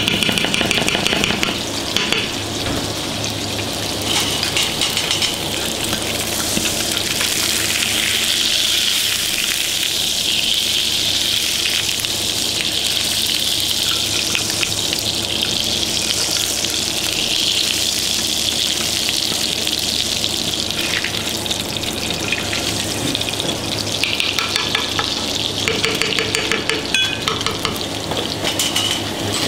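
Butter frying in a pan, a steady sizzle, with a spoon tapping and scraping in the pan as the butter is basted, most of it near the start and in the last few seconds.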